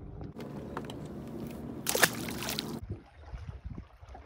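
A short splash in the water about two seconds in, lasting under a second, the loudest sound here, as a caught spotted bass is dropped back into the lake. Under it runs a steady low hum, and a few soft knocks on the boat follow.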